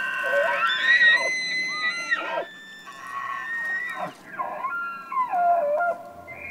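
Bull elk bugling its autumn rut call: a long high whistle that rises in pitch about half a second in and holds for a couple of seconds, followed by a series of shorter, lower calls that bend up and down.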